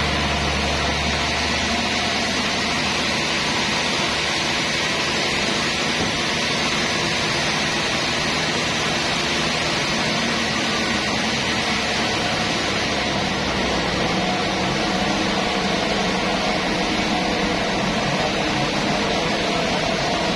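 Sawmill machinery running steadily, a constant loud hiss over a low mechanical hum; the low hum drops away about fourteen seconds in.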